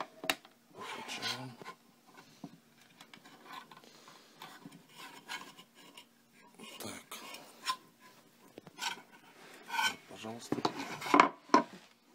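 Metal device case being opened by hand: its sheet-metal cover scraping, rubbing and clinking as it is slid off, with scattered clicks and knocks and a louder clatter near the end.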